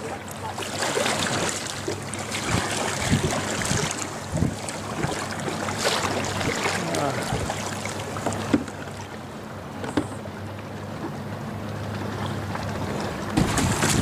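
Paddling a tandem sit-on-top kayak: the double paddle's blades dip and splash with scattered knocks, water laps at the hull, and wind buffets the microphone over a steady low hum.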